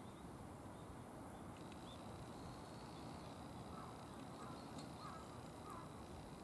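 Quiet street ambience with faint, distant bird calls repeating several times in the second half.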